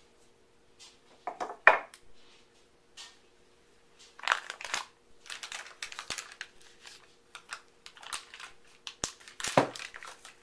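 Paper mold liner crinkling and rustling in irregular bursts as it is peeled off a freshly unmolded loaf of soap, with a couple of sharp knocks.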